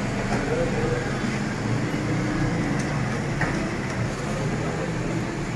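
Steady street background noise, with faint indistinct voices and a couple of small clicks.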